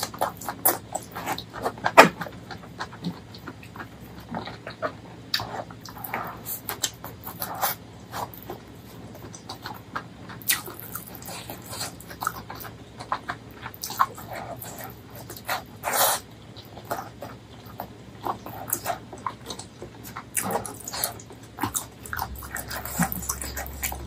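Close-miked mouth sounds of a person eating braised pork leg curry with rice: irregular chewing, lip smacks and clicks, with a sharper smack about two seconds in and another about two-thirds of the way through.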